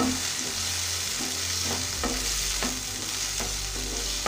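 Chopped tomatoes sizzling in hot oil in a non-stick kadai. A wooden spatula stirs and scrapes through them in quick strokes about twice a second.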